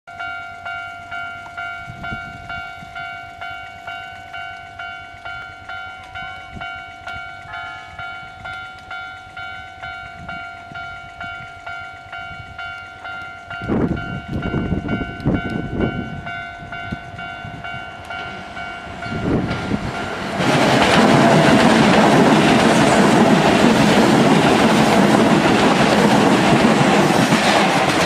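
Japanese level-crossing warning bell ringing, about two strikes a second, while a Keisei 3500 series electric train approaches. From about twenty seconds in, the train's wheels and running gear pass close by, loud enough to drown out the bell.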